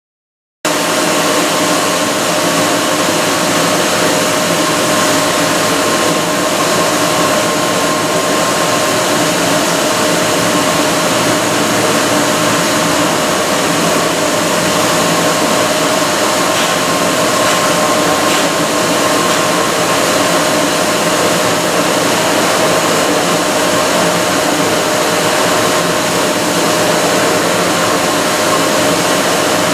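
Northwood Machine 3-axis CNC stone machining center running under power as its tool head travels along the gantry: a loud, steady mechanical whir with a constant whine.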